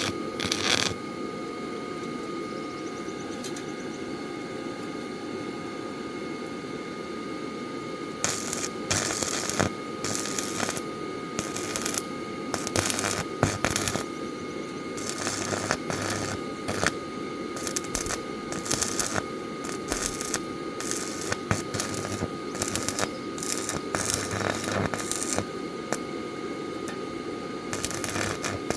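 Hand tools clinking, rattling and ratcheting on metal parts in irregular bursts over a steady background hum with a faint steady whine.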